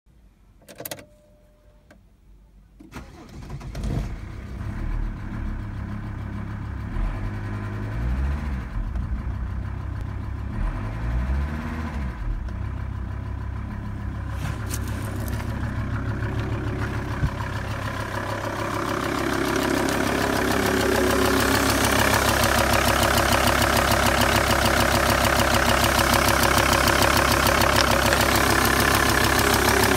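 Volvo V70's 2.5 TDI D5252T five-cylinder turbodiesel starting after a short quiet with a click, then idling with a diesel clatter. It is briefly revved twice and settles back to idle. Later it is heard close up at the engine, louder.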